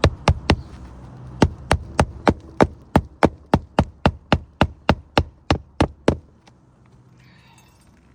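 Hammer striking in quick, even blows, about four a second: three fast blows, then a steady run of some twenty that stops suddenly about six seconds in. This is typical of hand-nailing a replacement roof shingle.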